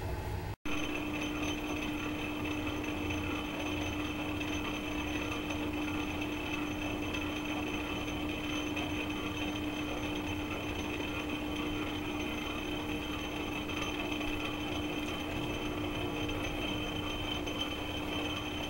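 Metal lathe running steadily while turning a silencer part, a constant low hum with a high whine over it. The sound breaks off for a moment about half a second in.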